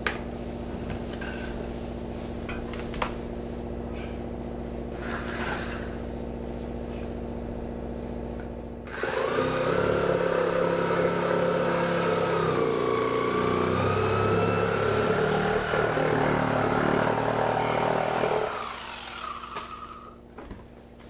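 Corded reciprocating saw cutting through old wooden hatch coaming, starting about nine seconds in and stopping a couple of seconds before the end, its motor pitch wavering as it works. Before it, a steady low hum with a few knocks.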